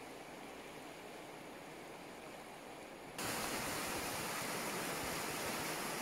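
Rushing water of a shallow, rocky river running over riffles: a steady hiss, fainter at first, then a sudden step up to louder, fuller rushing about three seconds in.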